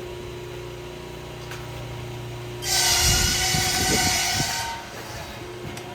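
Sawmill machinery running with a steady hum. About halfway through, a saw cuts into wood for about two seconds with a loud, high, whining rasp, along with low knocks, then drops back to the running hum.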